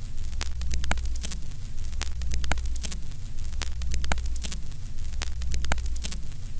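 Old-film countdown sound effect: a steady low hum under scratchy crackle and irregular sharp pops, the noise of worn film running.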